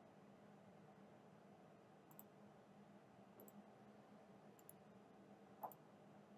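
Near silence with a few faint clicks of a computer mouse, spaced more than a second apart; the last one, near the end, is a little louder.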